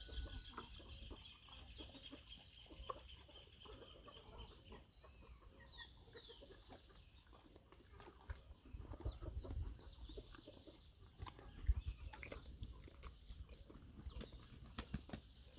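Faint farmyard background: chickens clucking and small birds chirping, with soft scattered clicks and low thumps.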